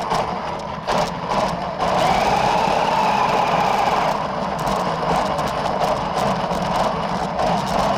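Toy RC car running at speed, its motor whining and tyres scrubbing on the floor, with two short let-offs about a second in and a whine that rises and falls in pitch a few seconds later.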